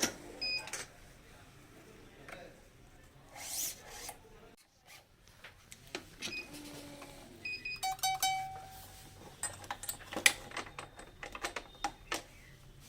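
Badminton racket stringing: scattered clicks and knocks of the stringing tools, with several short high pings, and a quick rattling run of clicks about eight seconds in.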